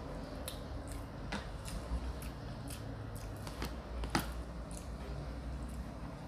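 Mouth sounds of someone eating chicken by hand: irregular small clicks and smacks of chewing, over a low steady hum.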